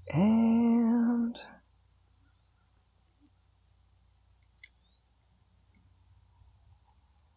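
A drawn-out spoken "and" held for about a second. About halfway through comes one faint click as a spade connector is pushed onto a sealed lead-acid battery terminal, over a steady high insect chirr from crickets.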